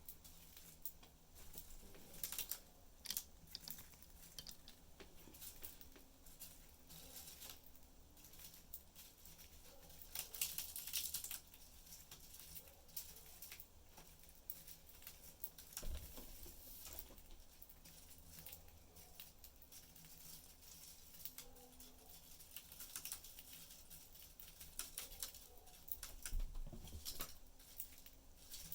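Budgies busy in their cage, heard as faint, irregular small clicks and taps, with a denser run of clicking about ten seconds in.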